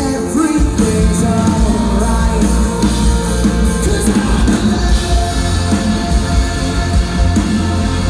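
Live rock band playing loud, with electric guitars, drums and a singer.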